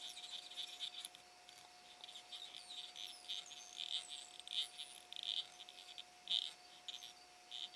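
Faint, irregular high chirping of insects, short pulses several times a second, over a faint steady hum.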